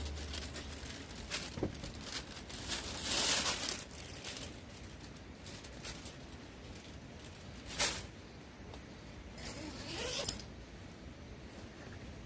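Small handling noises: light rustling and ticks, with a brief swish about three seconds in and sharp clicks near eight and ten seconds in.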